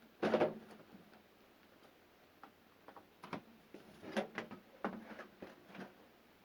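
Clicks and knocks of hands and parts being handled inside an opened microwave oven, a loud clunk about half a second in and then irregular small clicks, as the new high-voltage fuse is fitted back in place.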